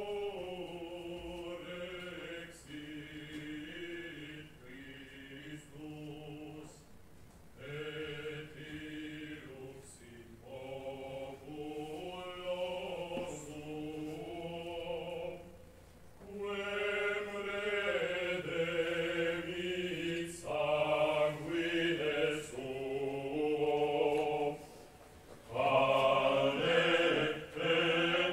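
Male vocal ensemble singing a cappella in several parts, in long held phrases. The singing grows fuller and louder about sixteen seconds in, breaks briefly, then comes back louder near the end.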